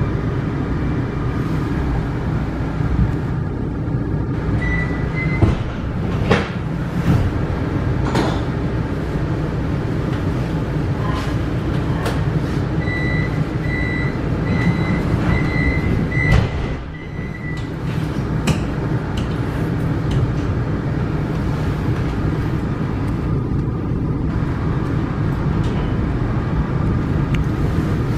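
Inside a Vienna U-Bahn U1 train at a station stop: the steady rumble of the train, a few knocks, and a run of short high beeps lasting about five seconds past the middle, the warning that the doors are closing, before the train moves off.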